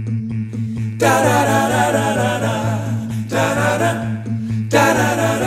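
Background music: an a cappella vocal arrangement of a children's worship song, voices singing the intro without words and growing fuller about a second in.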